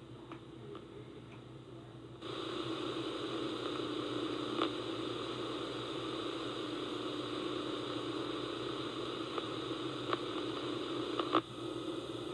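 Steady hiss and static from VHS tape playback, coming in suddenly about two seconds in, with a few faint clicks and a sharper click near the end.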